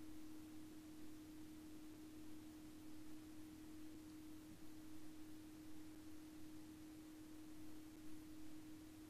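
Faint steady electrical hum, one unchanging low tone with a weaker, deeper tone beneath it, over light hiss: near-silent room tone on the microphone.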